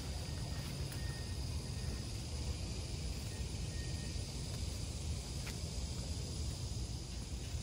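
Outdoor ambience: a steady low rumble with a faint, steady high insect drone over it, and a single light click about five and a half seconds in.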